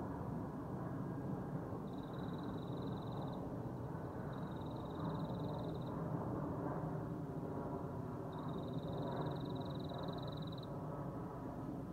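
Boeing C-17 Globemaster III's four turbofan engines heard from the ground as a steady jet rumble carrying several held hum tones. Three high, rasping buzzes, each one to two seconds long, sound over it, starting about two, four and eight seconds in.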